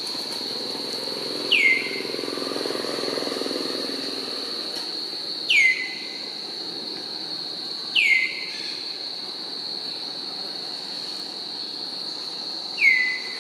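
Steady, high-pitched insect drone. Over it come four short calls that fall in pitch, spaced a few seconds apart, and these are the loudest sounds.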